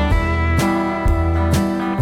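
Background music led by guitar, with strummed chords on a steady beat.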